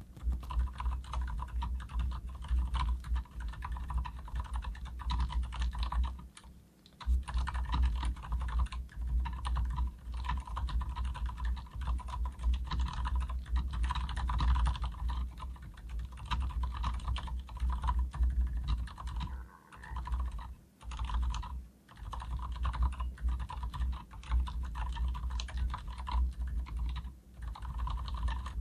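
Fast, continuous typing on a full-size Leopold FC900R mechanical keyboard with Cherry MX Silent Red switches and PBT double-shot keycaps, giving muted, damped keystrokes. The stabilizers are not lubricated, so under the keystrokes there is a slight metallic ping, which the reviewer calls faint. The typing pauses briefly twice.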